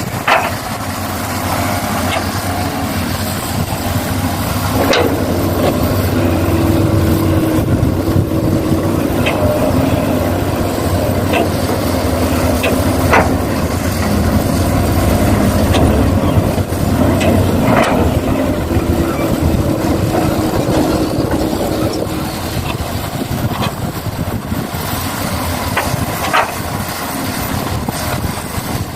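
Radio-controlled model excavator working, its steady machine sound carrying a held whine from about 5 to 22 seconds in, with a few sharp knocks scattered through.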